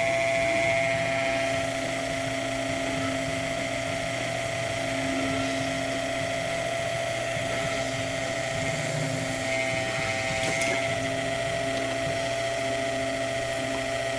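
Small electric pump on an HHO electrolysis cell running with a steady whine and hum while it is still not primed, lagging and barely moving the liquid.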